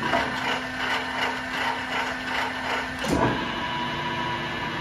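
LeBlond Regal Servo Shift lathe's headstock gearing running steadily with a low hum. About three seconds in there is a clunk, and the gear whine changes to a higher, multi-toned pitch, typical of the servo shift moving the spindle to another speed.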